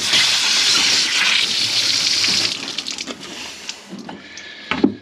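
Mains water spraying out under pressure from a disconnected quick-release hose fitting on a water softener outlet, because the supply valve was left open. A loud hiss that starts suddenly and eases off after about two and a half seconds, with a few knocks near the end.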